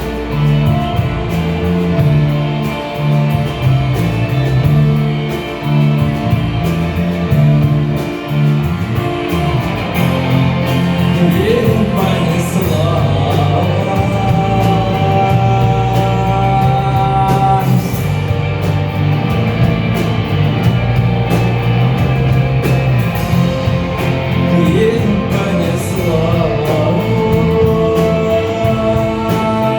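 Instrumental break of a rock song: guitars and bass over a steady drum beat, with no lyrics sung.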